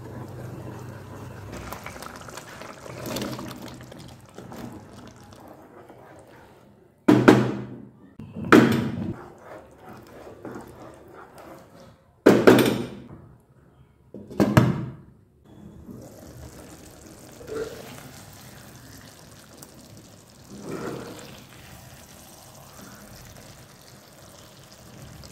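Thick masala being stirred in a frying pan with a wooden spatula: wet, squelching cooking sounds, broken by four loud wet thuds in the middle as the raw banana pieces go in and are turned over in the sauce.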